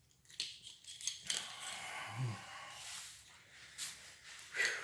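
Handling noise of small brake-connector parts being worked by hand: scattered clicks and a stretch of scraping, with a brief low sound about two seconds in and a louder click near the end.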